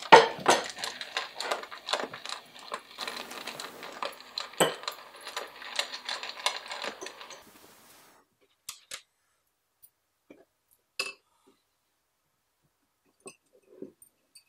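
Clinks and clatters of a meal, a plate and cutlery with a dog eating from its bowl, in a dense run for about seven seconds. Then it stops suddenly, leaving only a few scattered light taps and clinks.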